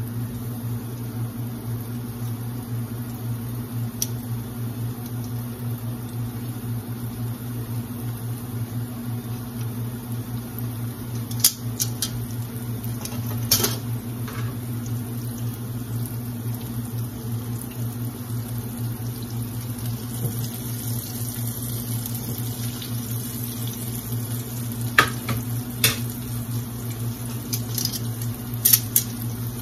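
Hot oil sizzling steadily as battered onion rings deep-fry in a cast iron skillet, over a steady low hum. A few sharp clicks of metal tongs against the pan come near the middle and near the end.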